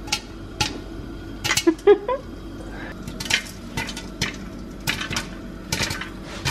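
Popcorn popping in oil in a covered metal pan: irregular sharp pops, with kernels ticking against the glass lid and the pan. The pops come in a quick cluster about one and a half to two seconds in.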